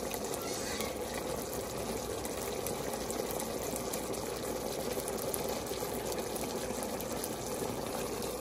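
Thick teriyaki sauce boiling in a pan, a steady dense crackle of bubbles popping.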